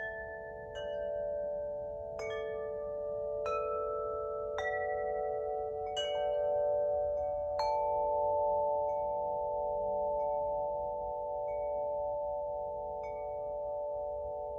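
Spring Wind Chime, the wood-element chime, ringing: a new strike about every second and a half sets off several clear, long-sustained overlapping tones. The strikes become softer after about eight seconds while the earlier tones ring on.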